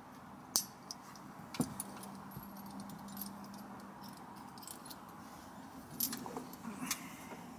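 Small metal clicks and jingles from the clip of a dog car-seatbelt tether being fastened to a puppy's harness: a few scattered sharp clicks over quiet handling.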